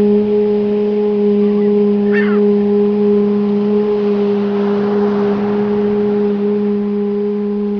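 A sustained 'oo' (U) tone held on one steady low pitch with a few overtones: the U sound of the chanting exercise. A bird chirps briefly about two seconds in.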